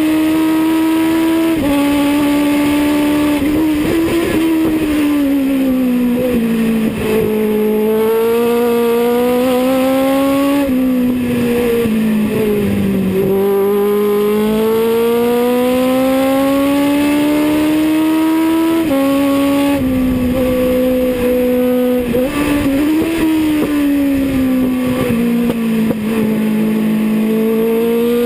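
Legends race car's Yamaha motorcycle engine at racing revs, heard from inside the cockpit: the pitch climbs steadily along the straights and falls away into the corners, with sudden drops in pitch at gear changes.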